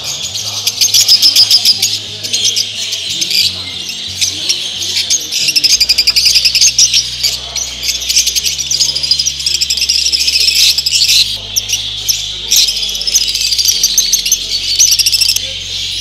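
Dense, continuous chirping and chattering of many caged show birds, lovebirds among them, with low sustained music notes underneath.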